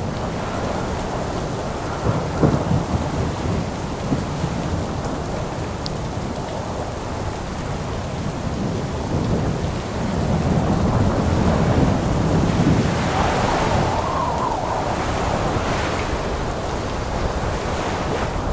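Hurricane storm noise on a phone's microphone: heavy wind-driven rain over floodwater, with low rumbling gusts that swell louder a couple of times.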